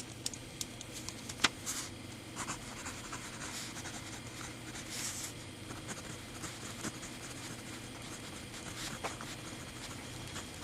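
A 0.5 mm Pentel Graph Gear 1000 mechanical pencil writing on paper: faint scratching of the lead, with scattered light clicks and taps.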